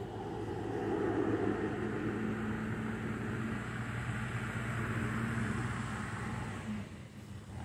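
Engine running steadily: a low hum under a rushing wash of noise that dips near the end.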